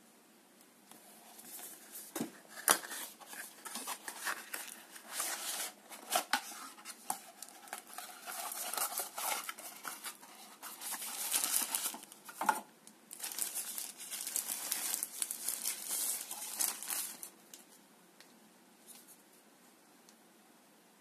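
A cardboard box being opened by hand and a bulb drawn out of its paper wrapping: rustling, crinkling and scraping of paper and card, with a few sharp clicks. It stops near the end, leaving quiet room tone.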